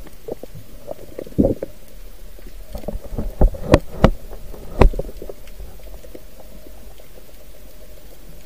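Muffled underwater sound picked up by an action camera's waterproof housing: a low rumbling wash of water, with a handful of sharp knocks in the first half, after which it settles to a steady low rumble.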